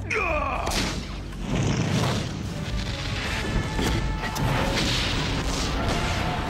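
Cartoon sci-fi battle sound effects: falling zapping sweeps in the first second, then repeated blasts and booms, over action music.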